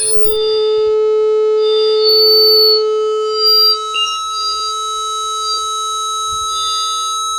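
Microphone feedback: a loud steady howl with a higher ringing tone held over it, and shriller tones flaring up and dying away every second or two.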